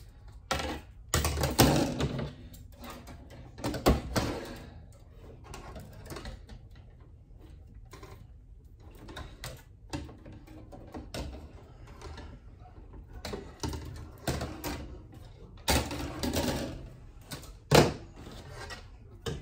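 Thin metal wire wreath forms clattering and clinking against each other and the tabletop as they are fastened together with plastic zip ties, with the quick ratcheting of the ties being pulled tight. The knocks and rattles come in irregular clusters, loudest about two, four, sixteen and eighteen seconds in.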